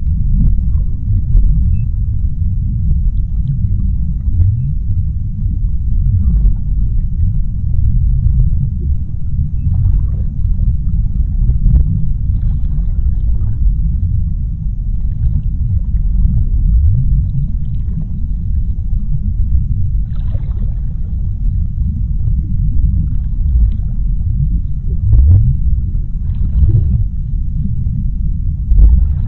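Underwater sea ambience: a deep, steady rumble of water, with faint scattered crackles now and then.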